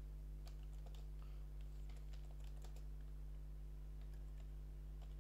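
Computer keyboard typing: a run of irregular keystroke clicks over a steady low hum.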